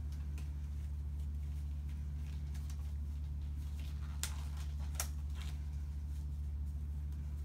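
Exam gloves being pulled on: light rustling of the gloves with two sharp snaps about four and five seconds in, over a steady low hum.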